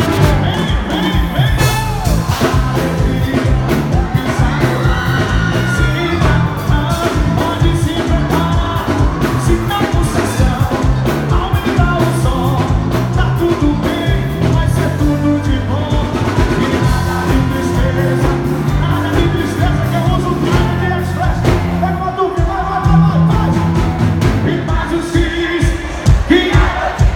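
Loud music with a singer over a steady, even beat and bass line.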